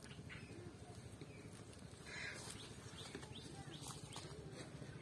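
Faint outdoor ambience: small birds chirping now and then, short high chirps over a low steady background noise.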